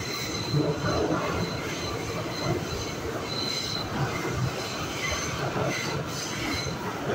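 New York City subway A train running through a tunnel, heard from inside the car: a steady rumble of wheels on the rails, with a high wheel squeal that comes and goes several times.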